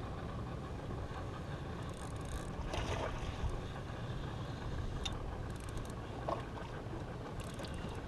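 Steady low rumble on the deck of a small fishing boat on the water, with a few faint clicks now and then.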